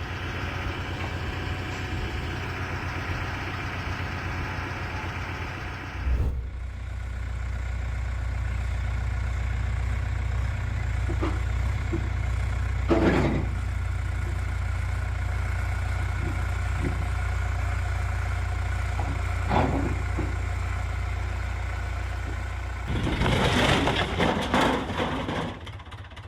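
An engine running steadily with a low hum, with a few brief louder sounds over it and a louder, noisier stretch near the end.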